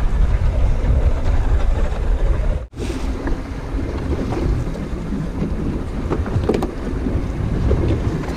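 Wind buffeting the microphone over choppy sea against a boat's hull, with a sudden brief dropout in the sound about two and a half seconds in.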